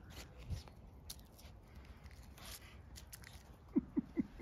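A puppy gives four quick, short yips in play close to the microphone near the end, each dropping in pitch. Before them there is faint rustling with a few light clicks.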